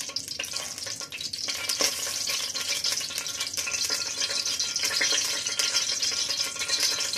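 Cooking oil sizzling and crackling as it heats in a large aluminium pot, growing louder over the first couple of seconds, then holding steady.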